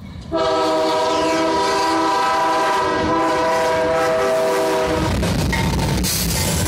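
Air horn of a CSX GE ES40DC diesel locomotive sounding one long, loud multi-tone chord that cuts off about five seconds in. The heavy rumble of the locomotives passing close by follows.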